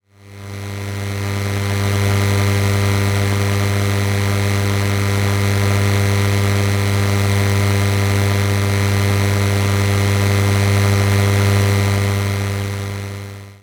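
Electrical hum sound effect: a steady, low mains-style hum with a buzzy layer of higher overtones. It fades in over the first couple of seconds and fades out at the very end.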